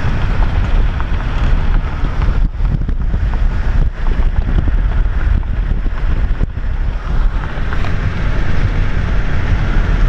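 Steady wind rush and road noise of a car driving at speed, heard from inside the cabin, with wind buffeting the microphone.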